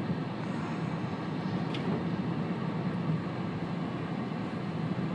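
Steady engine and road noise of a car heard from inside the moving cabin, with a low even hum.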